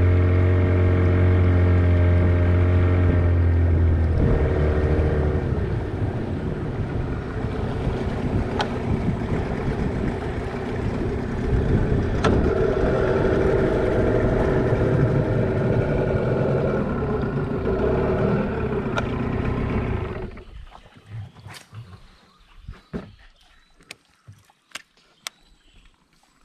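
A boat engine running steadily, changing pitch about four seconds in. It cuts out about twenty seconds in, leaving a few scattered knocks.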